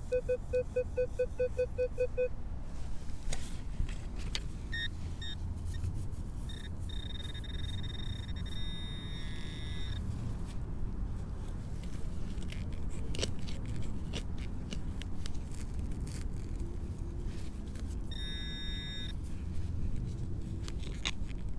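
A Minelab Equinox metal detector gives a fast pulsing low tone, about four pulses a second, for the first two seconds, a low iron-range response over a big piece of iron. After that a handheld pinpointer sounds a high tone: a couple of short beeps, a steady tone lasting about three seconds, and another about a second long near the end. Gloved hands rustle in the grass throughout.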